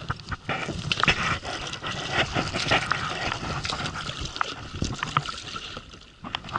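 Clattering, knocking and rubbing of a telescopic aluminium landing-net pole handled against the tube of an inflatable boat, mixed with water splashing and trickling as the pole dips in.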